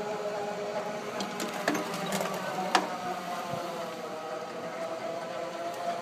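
Electric golf cart's drive motor whining steadily while rolling over a concrete floor, its pitch sagging slightly and recovering partway through, with a couple of sharp knocks about two and three seconds in. The rider takes the sound for the battery getting weak.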